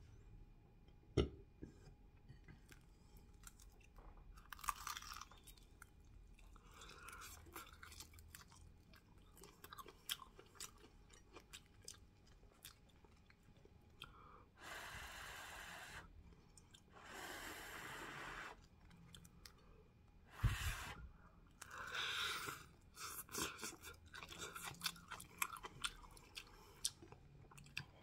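Chewing and crunching of a crispy fried spring roll: crisp bites into the wrapper and chewing of the sprout filling, with many short crackles. There are two longer hissing sounds midway and a sharp loud bite a little later.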